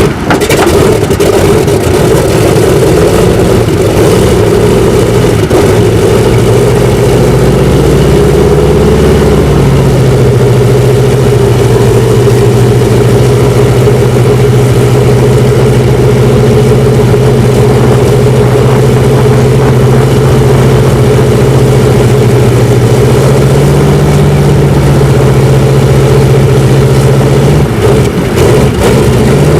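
Old propeller aircraft piston engine running loud and steady, its speed shifting slightly a couple of times.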